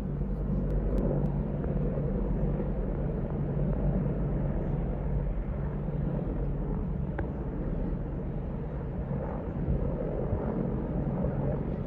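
Chinook tandem-rotor military helicopters flying over, a steady low rotor drone.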